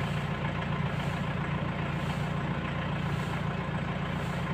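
An engine idling steadily, a low even drone with a fast regular pulse.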